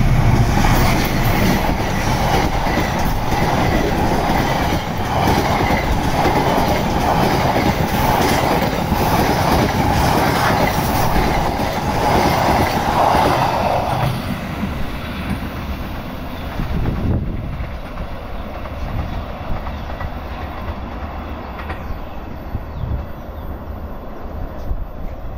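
A CC206 diesel-electric locomotive runs past close by, hauling a passenger train of stainless-steel cars whose wheels rumble and clack over the rail joints. The clacking stays loud for about fourteen seconds, then fades as the train moves away.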